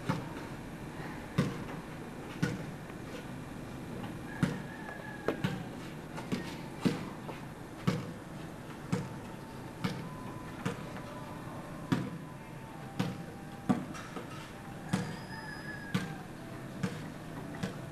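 A basketball dribbled on concrete, bouncing about once a second in an uneven rhythm.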